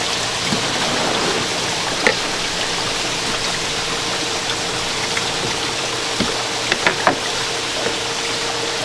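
Water running steadily through a stacked-tray hatchery incubator holding salmon eggs, with a few light clicks from the plastic trays being handled.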